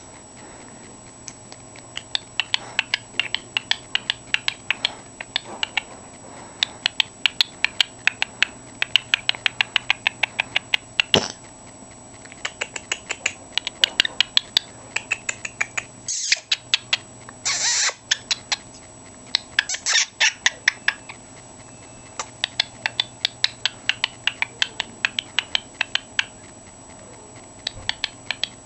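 Cockatiel making runs of quick, sharp clicks, several a second, broken by a few brief harsh bursts in the middle.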